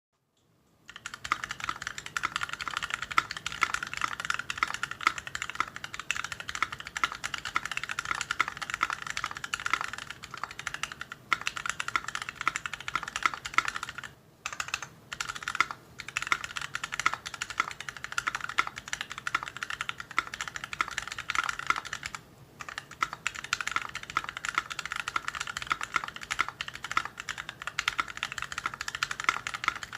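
Fast continuous typing on a mechanical keyboard with stock, unlubed YOK Mint Panda linear switches and GMK keycaps, starting about a second in, with a few short pauses. The switches are scratchy and loud.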